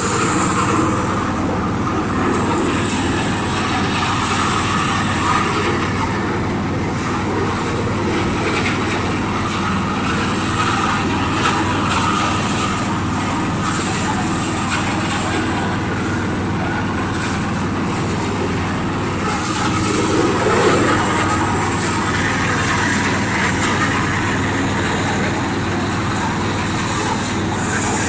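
Rice milling machine running, a steady loud mechanical din with an even low hum beneath the clatter of the mill.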